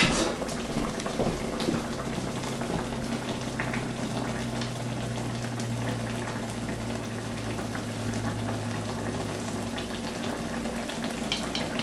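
Tomato-and-egg sarciado sauce simmering in a nonstick wok: a steady bubbling hiss with faint scattered pops as the freshly added eggs set in it.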